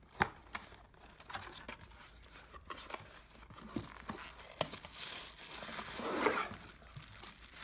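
Unboxing handling noise: a sharp click as the cardboard box's lid flap is pulled open, then scattered rustling and ticks, building near the end into the crinkling of the plastic bag wrapped around the diffuser.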